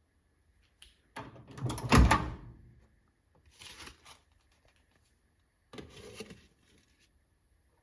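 Handling noises: a cluster of clicks and clatter ending in a loud thump about two seconds in, then two shorter, softer rustling bursts.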